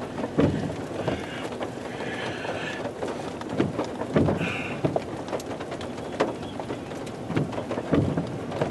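Heavy rain on a vehicle, a steady wash of noise broken by many irregular sharp taps of drops striking.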